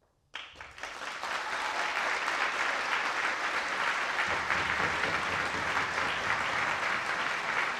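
Audience applause breaking out suddenly a moment after the start and building within about a second to steady, dense clapping.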